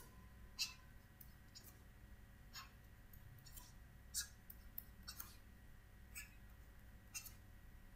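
Near silence with faint, irregular light taps and clicks of a stylus on a pen tablet as bonds and letters are hand-drawn, about a dozen small ticks spread unevenly.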